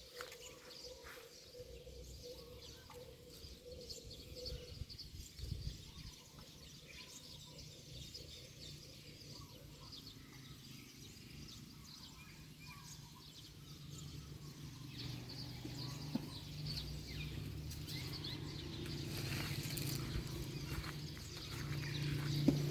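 Faint outdoor ambience with scattered bird chirps. In the second half a low steady hum slowly grows louder.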